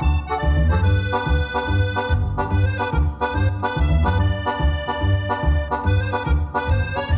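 Background music: a melody of held notes over a steady bass beat of about two notes a second.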